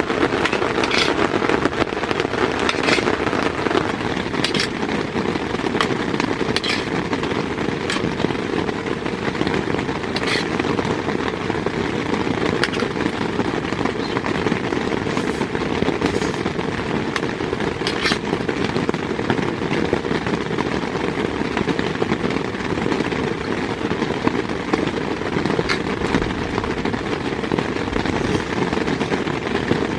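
Heavy rain falling steadily on a tent's fabric, a dense crackling patter with sharper single drop hits every second or two.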